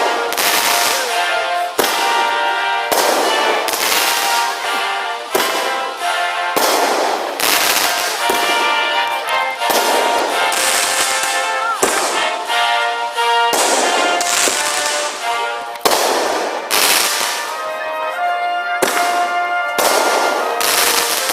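Consumer firework cake firing, with a sharp bang roughly every second, under a steady bed of music.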